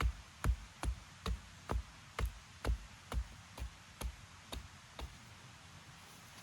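A steady series of dull, heavy knocks, about two a second, growing weaker and stopping about five seconds in.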